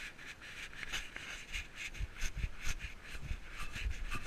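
A cat licking and grooming its fur right against the GoPro strapped to it: rapid, irregular rasping and rubbing on the camera housing, with soft low knocks.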